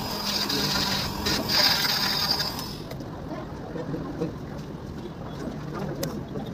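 Electric cast saw running against a plaster cast, cutting through it, then switched off suddenly about three seconds in. After that come quieter handling sounds as the cut cast is pulled open by hand.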